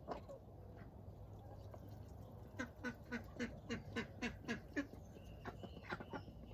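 Domestic duck quacking: a quick run of about nine quacks at around four a second, then a few scattered quacks.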